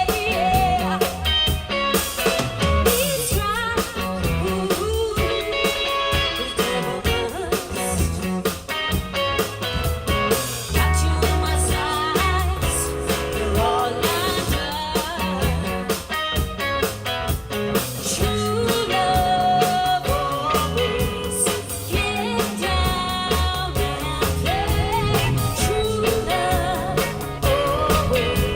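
Live band playing a rock/pop song with a female lead vocalist singing over guitar, bass and drum kit.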